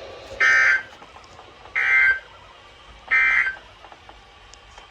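Emergency Alert System end-of-message signal on a weather-radio broadcast: three short bursts of screechy digital data tones, about a second and a half apart, marking the end of the warning.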